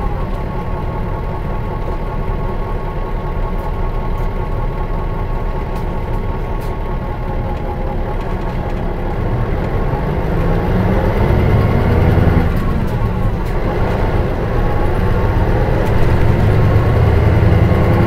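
Mitsubishi Fuso Aero Bus KL-MS86MP engine and drivetrain heard from inside the coach while it runs. The engine note eases down through the first half, then climbs and grows louder in the second half, with a break in pitch partway through as the manual gearbox is shifted.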